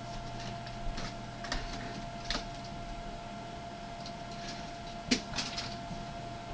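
Scattered light clicks and knocks of small objects being handled while rummaging for AA batteries, over a steady electrical hum; the sharpest knock comes about five seconds in, followed by a few quicker clicks.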